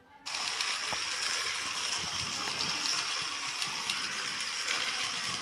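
Small battery-powered motor of an Elephant Express toy elephant running, a steady hissing whirr with faint ticking that starts abruptly.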